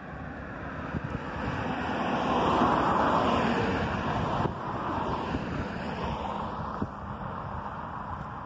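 A road vehicle passing along the bridge, its tyre and engine noise swelling to a peak about three seconds in and then fading, with wind buffeting the microphone.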